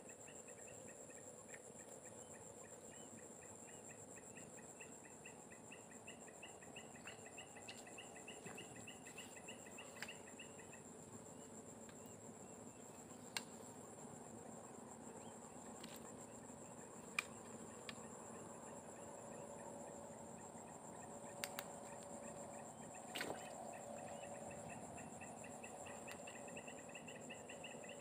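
Insects calling in swamp forest: a steady high buzz throughout, with a fast-pulsing trill that drops out about a third of the way in and comes back near the end. A few faint sharp clicks stand out here and there.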